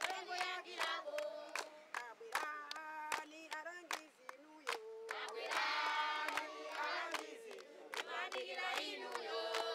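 A group of voices singing together over sharp, regular percussive beats, about three a second, like handclaps or a drum.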